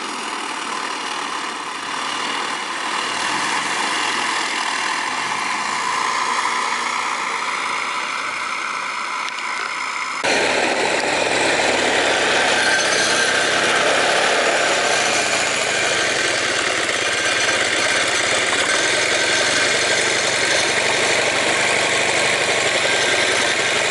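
Car engine fitted in a scooter running as the scooter rides off, its pitch rising slowly as it gathers speed. About ten seconds in the sound jumps louder and closer, and the engine runs on steadily.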